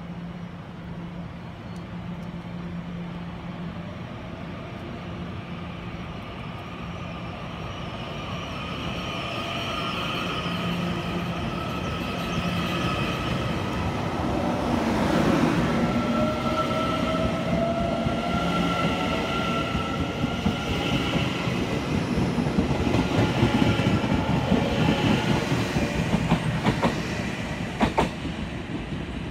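Puyuma Express tilting electric multiple unit (TEMU2000) pulling out and gathering speed: its traction motors whine and rise in pitch, and the wheels clatter and squeal a little over the rails, growing steadily louder as the cars pass close by. A sharp click comes near the end.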